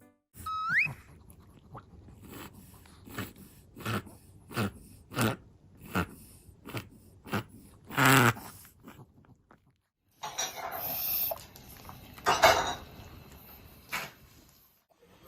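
A small dog reverse sneezing: a rapid run of sharp, forceful inhalations through the nose, about one and a half a second, the loudest near the middle. A second bout of noisy breathing follows after a short gap, and a brief rising whistle sounds near the start.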